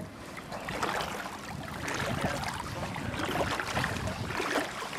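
A hooked lake-run brown trout thrashing in shallow water, making repeated irregular splashes as it is played to the bank.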